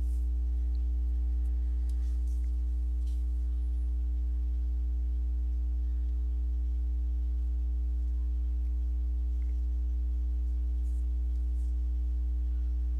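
Steady low electrical hum with a stack of fainter overtones above it, unchanging throughout, with a few faint clicks.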